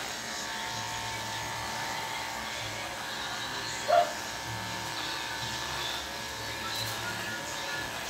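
Corded electric hair clippers running with a steady buzz, trimming short hair around the ear. A brief, louder sound cuts in about four seconds in.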